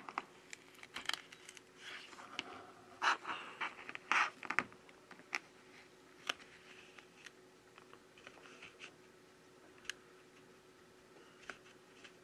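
Plastic opening pick scraping and clicking along the edge of an iPhone 12 as it cuts the adhesive holding the screen to the frame. The scraping is busiest in the first five seconds, then thins to scattered clicks.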